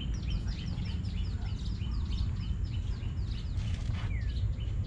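Birds chirping: a quick series of short, downward chirps, about three or four a second, over a steady low rumble.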